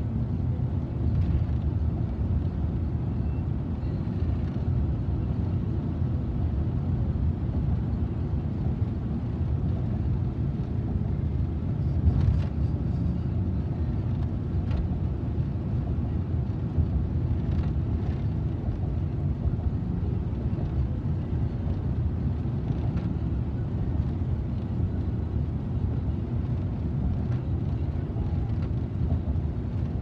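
Steady low rumble of tyre and engine noise inside a moving car's cabin, with a few faint clicks.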